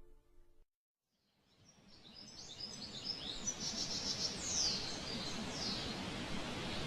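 Background music ends in the first second, then outdoor ambience fades in: birds chirping over a steady background noise.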